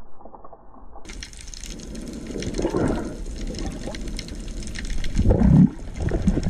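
Water heard underwater through a camera housing: a muffled rushing and sloshing, with louder surges about two and a half seconds in and again about five seconds in.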